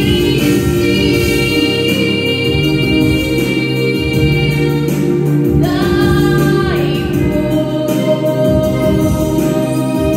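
A teenage girl singing a Ukrainian song into a microphone over instrumental accompaniment, holding long notes with vibrato.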